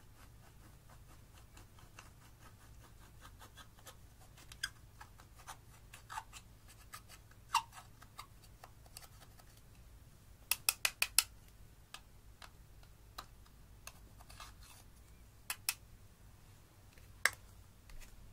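A thin metal pick scraping and clicking against a pressed eyeshadow pan in a plastic compact, giving scattered sharp ticks, with a quick run of five taps about ten seconds in.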